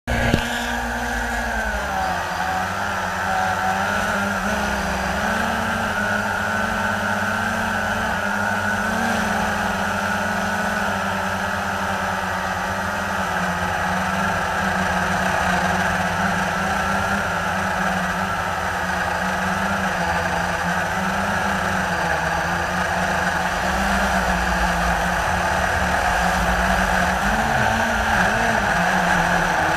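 Blade 350 QX3 quadcopter's brushless motors and propellers buzzing steadily in flight, heard from the camera mounted on the drone, over a steady hiss. The pitch wavers slightly as the motors change speed and dips briefly near the end.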